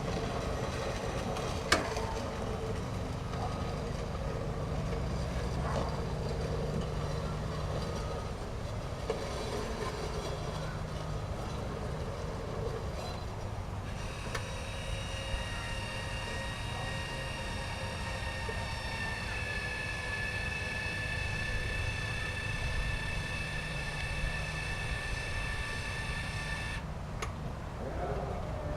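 Small electric garden tractor's 1 HP electric motor running with a steady low rumble. About halfway in a high, steady whine of several tones sets in, then cuts off suddenly near the end.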